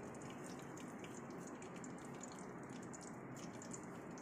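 Whole spices and shahi jeera frying in hot ghee and oil in an electric rice cooker's pot: a faint steady sizzle with many small, irregular crackles.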